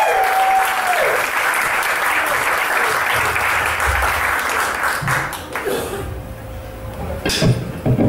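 Audience applauding, dying away after about six seconds, with a few sharp knocks near the end.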